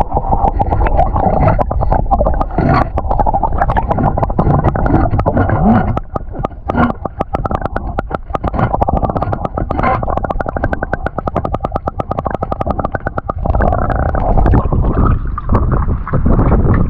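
Muffled underwater sound of a clam rake being worked along a muddy bay bottom: a steady low rumble and gurgle of water, with rapid clicking and scraping through the middle stretch as the metal tines drag through the mud and over shells.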